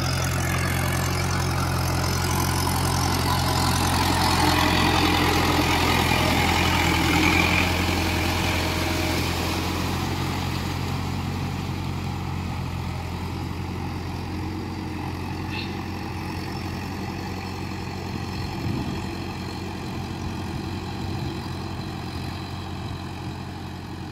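Trakstar tractor's diesel engine running steadily under load while puddling a flooded paddy field with a levelling board. It grows louder a few seconds in, then slowly fades as the tractor moves away.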